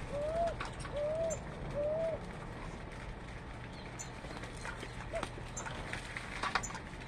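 Birds calling: a low, arched call repeated three times about a second apart, then once more about five seconds in, with short high double chirps recurring throughout.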